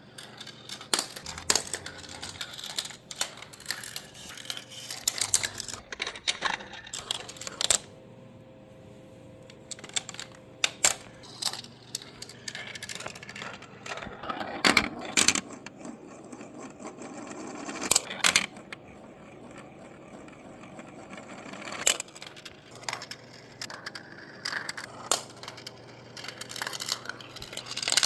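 Marbles rolling and clattering through a plastic Gravitrax marble run, with many sharp clicks and knocks as they drop onto and hit the track pieces. The rolling and clicking comes in runs, with two short lulls.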